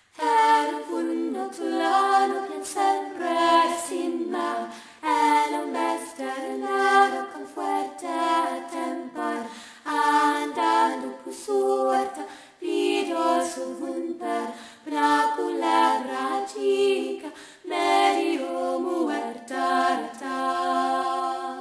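A cappella vocal music: voices singing without instruments, in short phrases.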